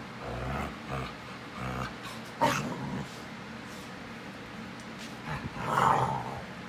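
Dogs making low vocal sounds, with a short sharp sound about two and a half seconds in and a louder, longer vocal sound near six seconds in.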